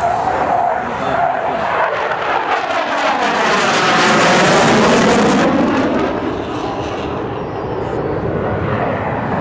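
F-111 jet, with its twin TF30 turbofans, passing low overhead. The noise swells to its loudest about four to five seconds in with a sweeping, phasing sound, then eases as it moves away.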